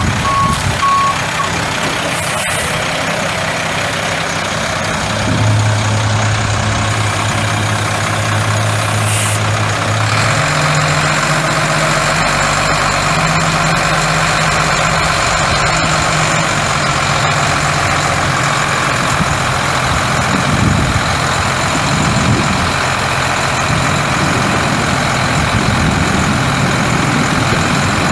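Dump truck's reverse alarm beeps for about the first second and a half. The Cummins ISC 8.3-litre inline-six turbo diesel runs on throughout, its engine speed stepping up a few times in the first half and then holding steady.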